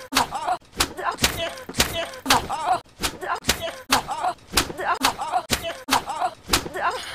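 A hand slapping a face over and over, about two sharp smacks a second, each followed by a short pained cry from the boy being hit.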